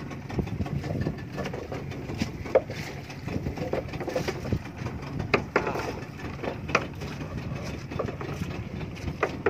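Small wooden fishing boat on open water: a steady low rumble, with irregular sharp knocks and clicks every second or two from the hull and fishing gear as the net is handled.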